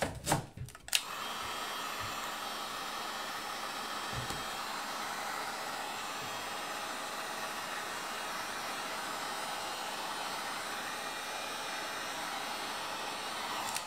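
Heat gun blowing steadily, heating a phone's glued back glass to soften the adhesive; it starts about a second in and cuts off near the end. A few clicks of handling come just before it starts.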